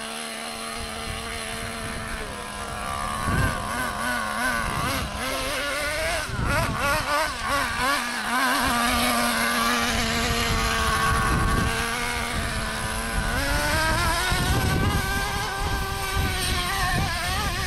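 Nitro RC monster truck's small glow-fuel two-stroke engine revving up and down as the truck drives over dirt and climbs a steep hill, its pitch rising and falling with the throttle.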